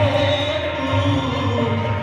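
A man singing a slow Hindi film ballad into a microphone over a recorded instrumental backing track, amplified through a stage PA. He holds a long, gently wavering note.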